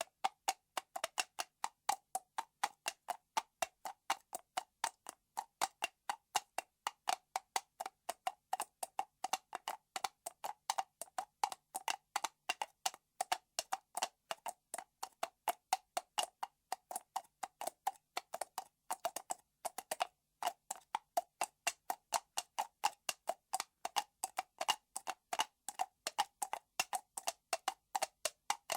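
An empty aluminium soda can being tapped in a quick, steady stream of short, sharp taps, about four a second.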